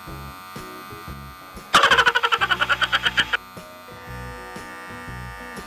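Wahl Magic Clip cordless hair clipper with a gold BaByliss blade, mounted with its plastic spacer piece, running with a steady buzz. About a second and a half into the sound it turns much louder with a fast pulsing for over a second, then settles back to the steady buzz.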